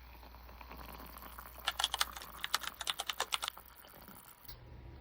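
A quick, irregular run of about a dozen light clicks and taps, lasting about two seconds.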